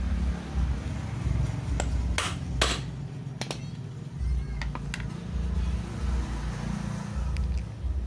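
Metal knocks and clicks from a twin-tub washing machine's wash gearbox being taken apart by hand: two sharp knocks about half a second apart a couple of seconds in, then scattered lighter clicks.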